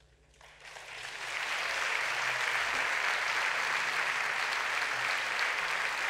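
Audience applause, swelling about half a second in and then going on steadily.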